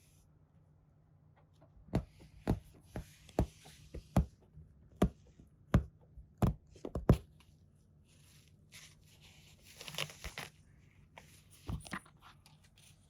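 A cat clawing at sofa upholstery: about a dozen sharp scratches as the claws catch and pull at the fabric, then a longer rough scraping run a few seconds later.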